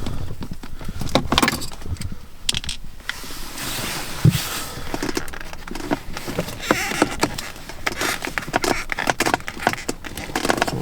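Hand tools and plastic trim being worked at a car's gear shift knob: a string of irregular clicks, taps and light metallic rattles, with a short stretch of hiss and a dull thump about four seconds in.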